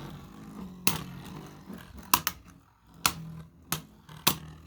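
Two Beyblade spinning tops battling in a plastic stadium: sharp plastic clacks as they collide, about six at irregular intervals, over a low steady hum.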